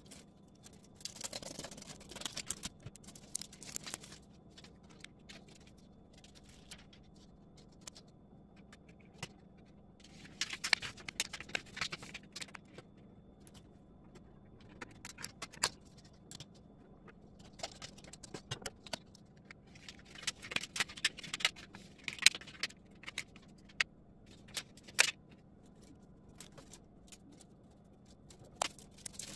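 Intermittent bursts of scraping, crinkling and clicking as peel-and-stick plastic panels are cut and handled, in three main spells with quieter gaps between.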